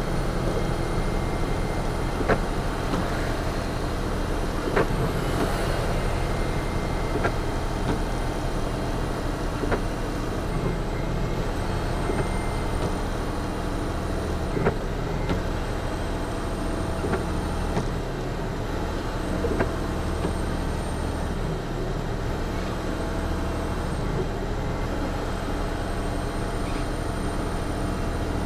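Western Star semi truck's diesel engine running steadily in third gear, heard from inside the cab as it holds back a fully loaded trailer on a long downhill grade. Short sharp knocks come about every two and a half seconds.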